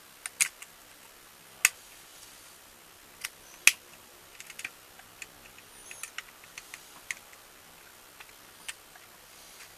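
Sharp, irregular plastic clicks and snaps from a G1 Transformers Soundwave toy being handled, its parts clicking into place. The loudest snaps come near the start, about a second and a half in and about three and a half seconds in, with lighter ticks after.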